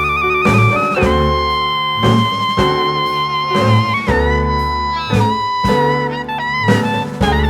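Background music: a held melody line with vibrato over a steady plucked bass beat.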